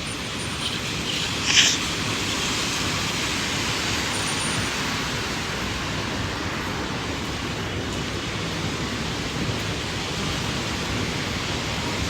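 Steady hiss of falling rain, with one brief sharp sound about a second and a half in.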